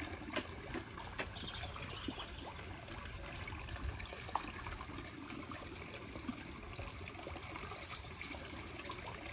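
Water trickling steadily into a koi pool, with a few small splashes and pops from koi feeding at the surface.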